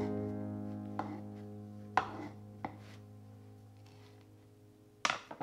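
A knife slicing a loaf of black sesame bread on a wooden board: a few sharp knocks of the blade through the crust and onto the board, the loudest about two seconds in and just before the end. Soft background music holds a chord that slowly fades.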